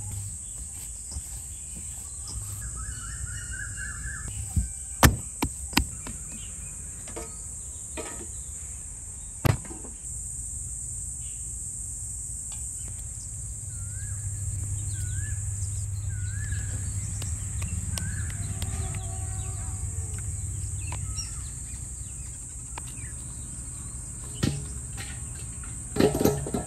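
Rural outdoor ambience: a steady high-pitched insect drone, with a bird chirping in short repeated notes and a few sharp knocks. Near the end comes a brief clatter of dry sticks being handled.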